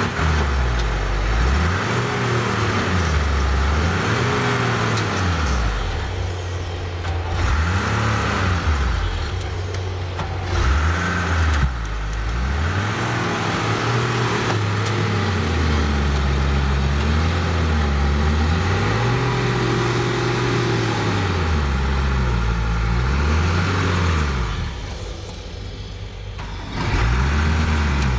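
Diesel engine of a tracked forestry machine revving up and down over and over as it works its way through deep bog mud under heavy load, easing off briefly near the end before picking up again.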